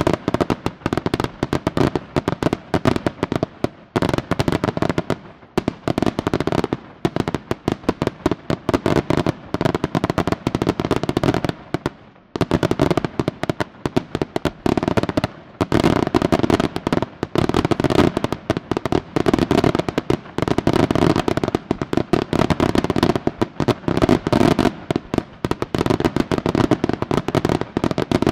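Fireworks barrage: a dense, rapid stream of bangs and crackling, with a short lull about twelve seconds in.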